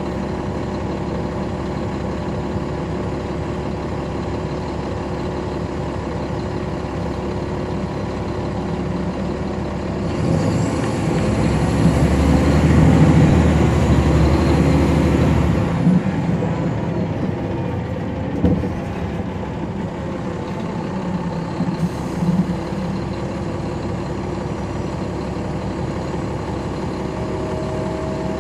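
Caterpillar C13 ACERT diesel engine of a 2009 NABI 416.15 transit bus with a ZF Ecomat transmission, running steadily, then growing louder for about six seconds about a third of the way in before dropping back to a steady idle. A few short clicks and knocks come just after the loud stretch.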